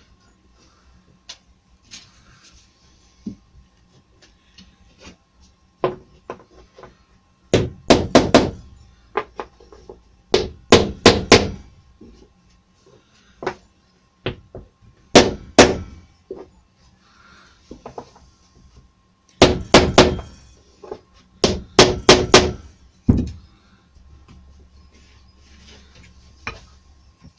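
Hammer tapping on a small wooden block to knock glued panel mouldings down into place, in several quick runs of sharp knocks with pauses between.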